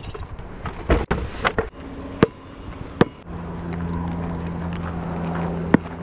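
Bags and gear being handled in a car's cargo area, with rustling and short knocks, then a steady low hum with a few sharp clicks.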